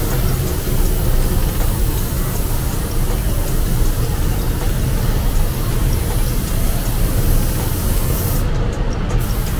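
Steady hiss of compressed air from an air tool over a low rumble, with the hiss cutting out briefly near the end.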